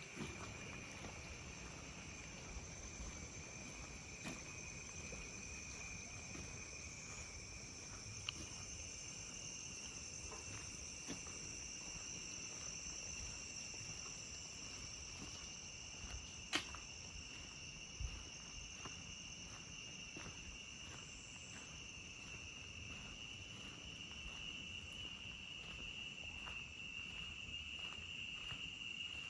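Crickets chirring in a steady night chorus, a continuous high-pitched drone at two pitches that grows slightly louder near the end, with faint scattered ticks and one sharper tick about two-thirds of the way through.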